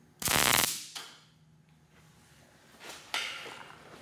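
MIG welding arc tacking a steel rod joint: a loud crackling burst lasting under half a second. A faint click follows, then two shorter sharp snaps about three seconds in that fade away.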